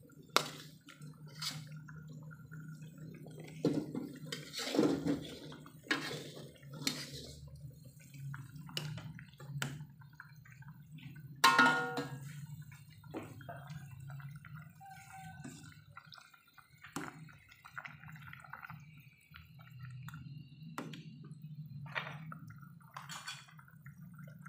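Metal ladle and spatula knocking and scraping against a wok and a soup pot as fried spice paste goes into vegetable broth and is stirred, with liquid dripping and splashing. One sharp ringing metal clang about halfway through is the loudest sound.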